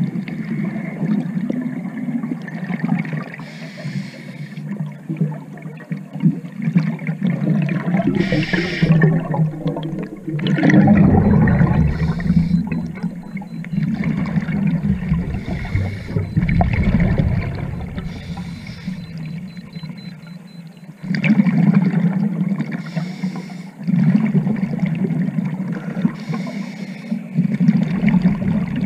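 Scuba diver breathing through a regulator underwater, heard muffled through the camera housing: inhalations alternate with gurgling rushes of exhaled bubbles in cycles of a few seconds, with the longest, loudest bubbling about a third of the way through.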